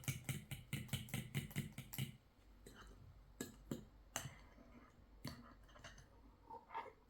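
Quick, even strokes of a kitchen utensil, about six a second, each a click with a dull knock, for the first two seconds. After that come a few scattered knocks and clinks.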